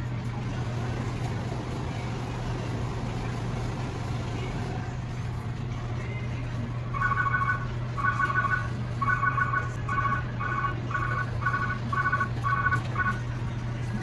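Steady low hum under wind-blown noise, and from about halfway a series of about a dozen short two-tone beeps, roughly two a second, like a vehicle's alarm or horn signal.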